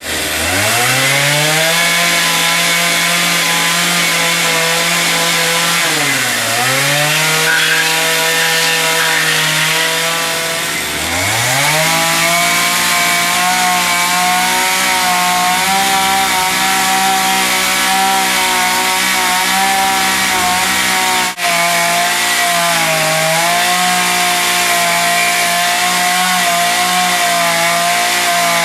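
Chainsaw running at high revs. It winds up at the start, and the revs sag twice and climb back, with a short dip later on.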